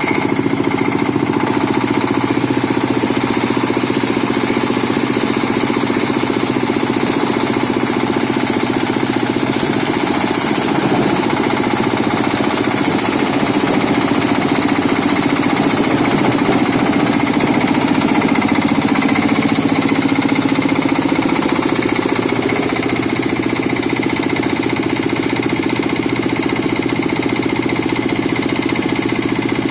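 Waste-sorting separator machine with a vibrating sieve, running steadily with a fast, even rattle over its motor drone.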